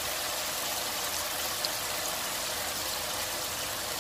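Chicken in a tomato and lemon-juice gravy simmering in a non-stick pan: a steady bubbling hiss, with one small tick about one and a half seconds in.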